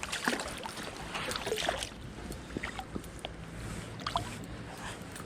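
Stream water splashing and trickling, with scattered small splashes and clicks, as a hooked small rainbow trout is brought in by hand.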